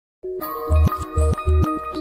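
Intro music: held notes start just after the beginning, and a deep, repeating bass beat comes in about half a second later.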